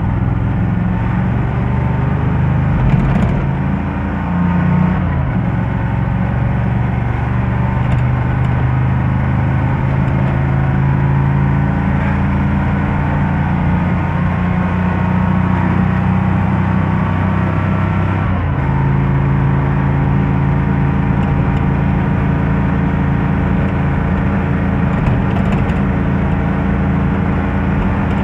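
25 hp Kohler V-twin engine in a 1987 Dodge Ram 50 pickup running steadily under load at around 4,000 rpm while the truck cruises, heard from inside the cab. Its note dips briefly about three seconds in and shifts again about eighteen seconds in.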